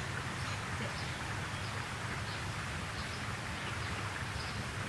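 Steady outdoor background noise with faint, high bird chirps now and then.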